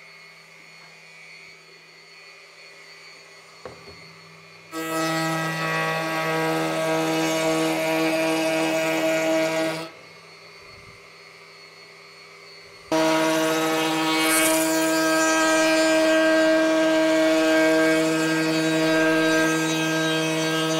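Table-mounted router with a half-inch roundover bit running with a steady whine while a wooden board is fed around it to round over its edges. It starts about five seconds in, stops about ten seconds in, and runs again from about thirteen seconds.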